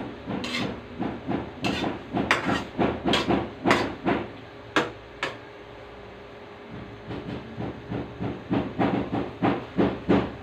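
Metal slotted spatula scraping and knocking against a wok as pechay and sardines are stir-fried, in quick runs of strokes with a pause of a second or two in the middle. A steady hiss from the frying pan runs underneath.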